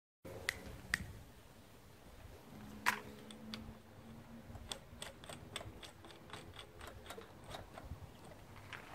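Faint clicks and light metallic taps of hands handling the brass fittings and end cap of a small homemade hybrid rocket motor on its test stand, with one louder knock about three seconds in.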